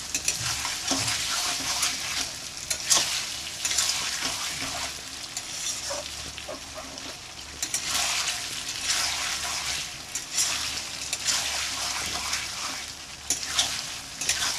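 Mutton and liver pieces frying in oil in a metal kadhai, sizzling steadily while a spatula stirs and scrapes them around the pan. The sizzle swells and fades in waves as the spatula turns the meat, with scattered clicks of the spatula against the metal.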